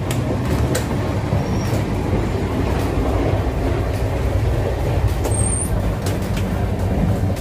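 Steady low rumble of a moving passenger train, heard inside the coach. Several sharp metal clicks and knocks sound over it; the first, right at the start, come from a hand working the toilet door's steel latch.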